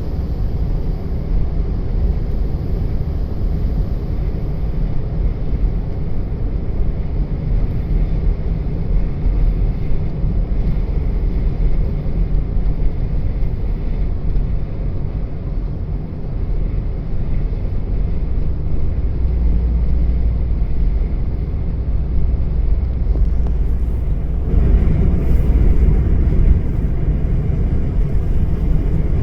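Snowstorm wind buffeting the microphone: a steady low rumble that swells and grows harsher about twenty-four seconds in.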